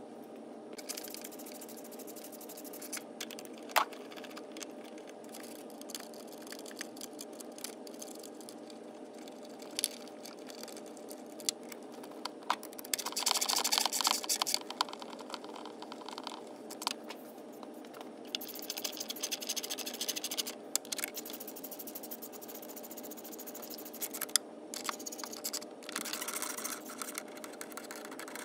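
Socket ratchet on a long extension clicking in short spells, with metal tools scraping, while bolts are worked at the back of a V8's intake manifold. A steady low hum runs underneath.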